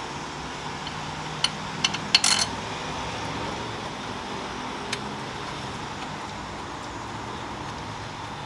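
Several sharp metallic clinks about a second and a half to two and a half seconds in, and one more near five seconds: bolts and hand tools knocking as the midshaft bearing bolts are started by hand. A steady fan hum runs underneath.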